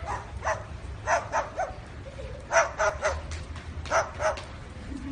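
A cockatoo mimicking a dog's bark: a string of short barks, mostly in quick runs of two or three.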